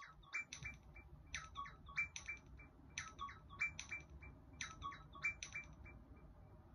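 Apple Watch ringtone playing faintly from the watch's small speaker: a quick run of short chirping notes, repeated about every second and a half, four times over. A low hum sits underneath.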